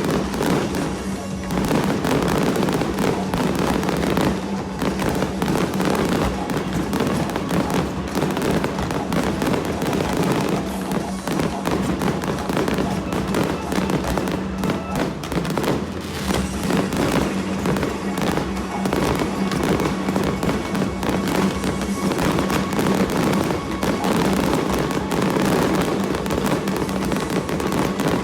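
Fireworks going off in a dense, continuous barrage of bangs and crackling, with no pauses between shells.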